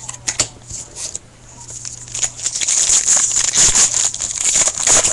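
Trading cards being handled with light clicks, then a foil card pack wrapper crinkling and tearing open, louder from about two and a half seconds in.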